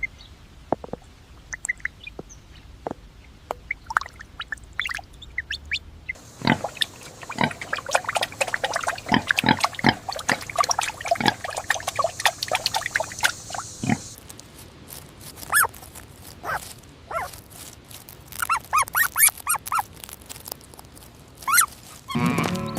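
Pigs grunting and squealing in many short, separate calls, spliced from several recordings that change about six seconds in and again about fourteen seconds in.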